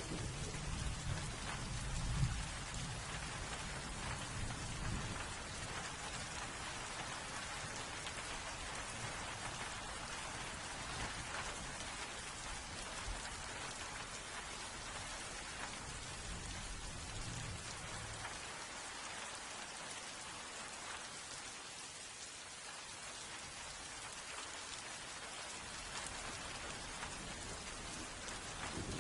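Steady rain pouring down in an even hiss, with low rumbles of thunder in the first few seconds and again a little past halfway.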